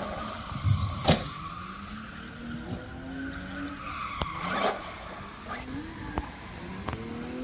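Radio-controlled model car driving on asphalt: its motor whines up in pitch as it speeds up, with tyres scrubbing on the road twice and a few sharp clicks.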